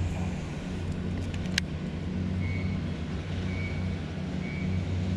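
Steady low motor drone, the hum of a distant engine in suburban surroundings. It is broken by one sharp click about a second and a half in, and later by faint short high chirps about once a second.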